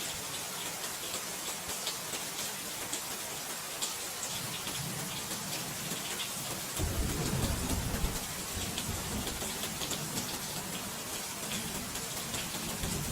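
Steady rain falling with a patter of drops, and a low rumble of thunder that swells about seven seconds in and then fades.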